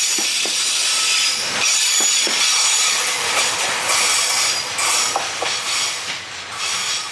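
A JR Freight container train passing close by: steady rolling noise with a high wheel squeal and scattered clacks over the rail joints, easing off a little near the end.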